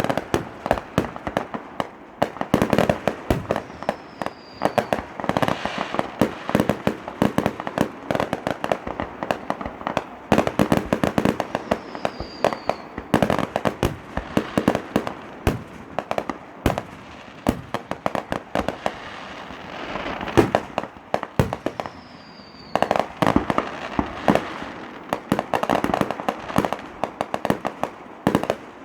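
Fireworks display: a dense, continuous run of bangs and crackling reports, with flurries of rapid pops throughout.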